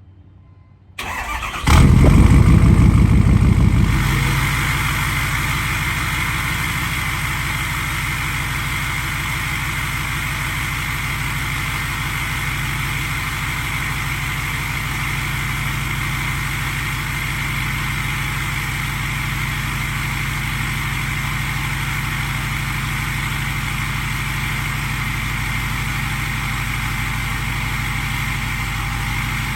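A 6.7 Powerstroke V8 turbo-diesel on a 5-inch DPF-back exhaust starts up. It cranks briefly, catches with a loud flare about two seconds in, then settles into a steady idle with a constant high whistle from the KC Whistler turbo.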